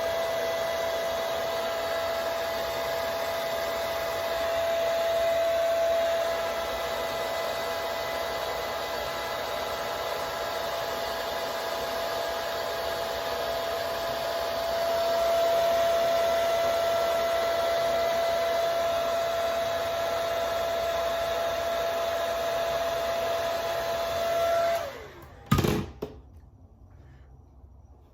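Hand-held hair dryer blowing steadily with a constant whine, used as heat to dry lace-wig glue. It switches off about 25 seconds in, followed by two quick knocks.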